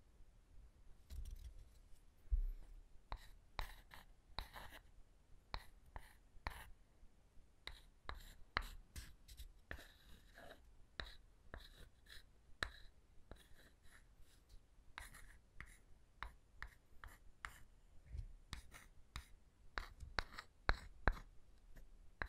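Irregular tapping and light scratching on wooden objects, with quick taps of varying strength and a brief stretch of scratching about ten seconds in.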